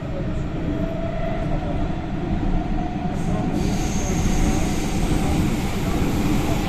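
Metro train running through a tunnel, heard from inside the car: a steady low rumble with a faint hum. About three and a half seconds in it grows louder and hissier, and a thin high wheel squeal joins.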